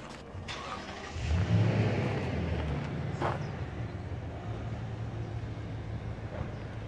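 A motor vehicle's engine running, growing louder about a second in and then holding a steady low hum. A few footsteps on sandy ground come through as well.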